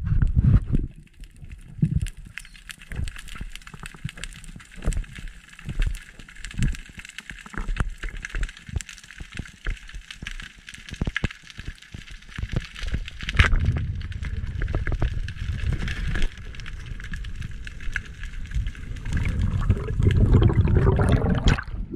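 Underwater sound picked up by an action camera: many irregular sharp clicks and crackles over a low rushing rumble of water movement, which grows louder about halfway through and again near the end.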